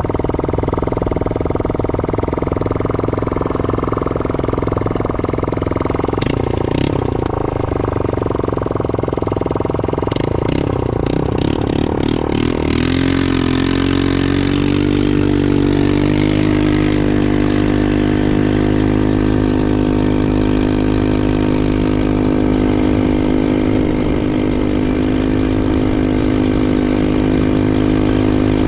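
Four-wheeler ATV engine running while riding, with several sharp knocks in the first half. About halfway through, the engine settles into a steady, even note.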